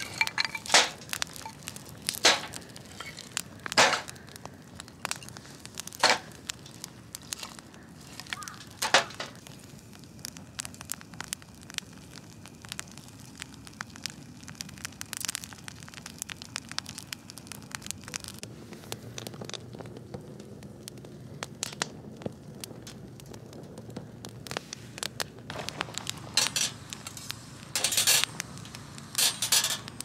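Wood fire of twigs and split firewood burning in a folding stainless-steel fire pit, crackling with sharp scattered pops over a steady low hiss. The pops come thickly in the first ten seconds, thin out in the middle and bunch again near the end.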